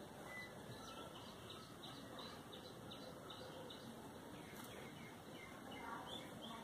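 Faint background hiss with a bird chirping faintly in the background: a quick run of short high chirps in the first half, and a couple more near the end.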